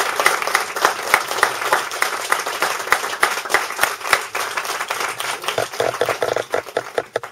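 Audience applauding in a small room: a dense patter of hand claps that thins to a few scattered claps near the end and then stops.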